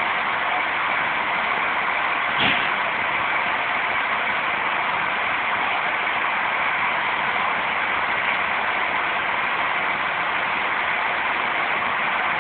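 Steady hiss of escaping steam from the standing 1879 GS&WR J15 0-6-0 steam locomotive No. 186, with a single short knock about two and a half seconds in.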